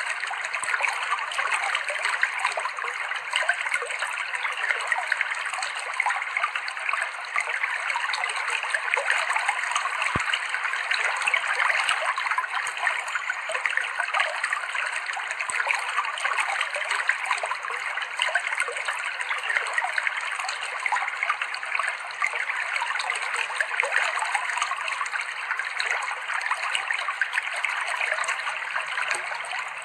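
Clear stream water flowing and trickling over rocks: a steady splashing babble with many small splashes.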